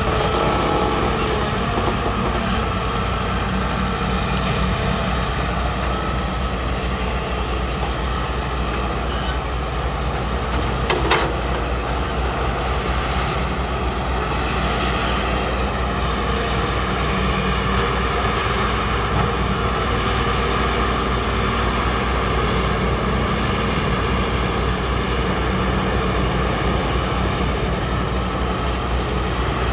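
Heavy construction machinery running steadily: the engines of excavators and dump trucks at work, with a single sharp knock about eleven seconds in.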